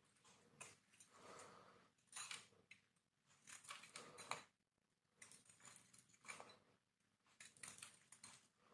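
Knife blade cutting and shaving a hard bar of Lux soap in short strokes about a second apart, each a crisp scrape with flakes crackling and snapping off.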